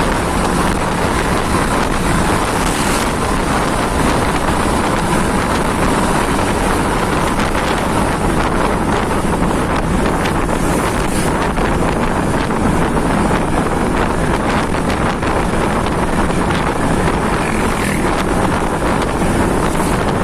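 Steady, loud wind noise buffeting the microphone, over a continuous vehicle rumble.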